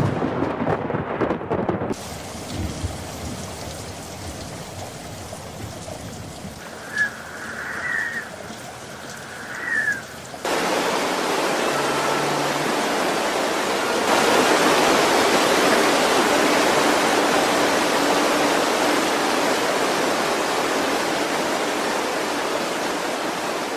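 A crack of thunder from a lightning strike, then steady rain with a few short high squeaks. About ten seconds in it cuts to a loud, steady rush of muddy floodwater pouring and surging, which gets louder again a few seconds later.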